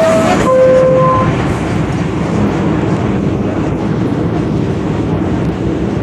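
R62A subway car running on the 1 line, with a steady rumble of wheels on rail and running gear. A short steady tone cuts off just after the start, and another brief tone sounds from about half a second to just over a second in.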